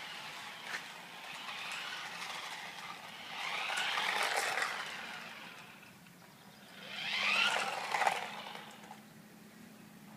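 Toy remote-control car's small electric motor whining in two bursts, its pitch rising and then falling each time as the car speeds up and slows down.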